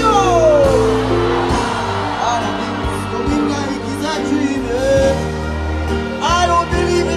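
Live music played loud through a concert sound system, with sustained synth chords and bass and a singer's voice over them. A long falling glide sounds just at the start, and the vocals are strongest about six seconds in.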